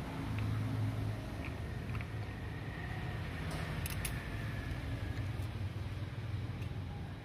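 Steady low mechanical hum of a running machine, with a few light clicks about halfway through.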